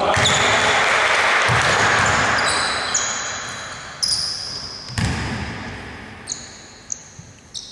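Basketball bouncing a few times on a hardwood gym court, with short sneaker squeaks, under a loud hiss-like wash of noise that starts at once and slowly fades.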